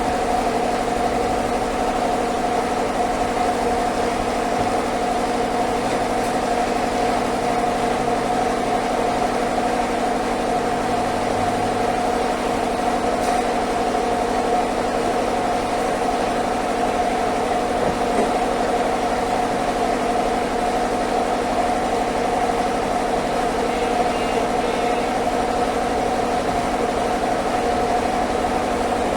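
Sawmill band saw running steadily, a constant machine drone with a fixed whine that does not change in pitch or level.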